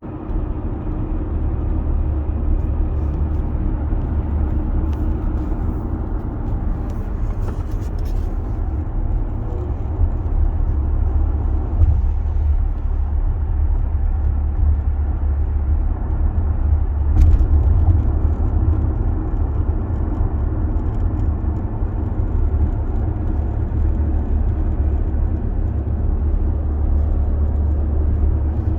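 Inside a 2022 Audi Q7's cabin, a steady low vehicle rumble with a few faint short clicks, about eight seconds in and again near seventeen: the HVAC rattle being recorded.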